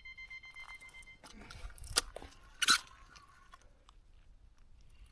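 Electronic bite alarm on a fishing rod sounding a steady tone for about a second, signalling a fish taking line, followed by a couple of sharp crunching sounds.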